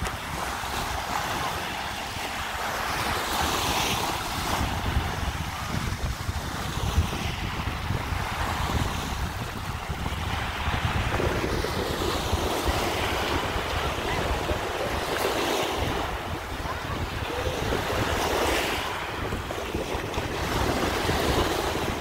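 Wind buffeting the microphone over choppy sea water, the waves washing and slapping in swells every few seconds, with a jet ski engine running faintly in the distance.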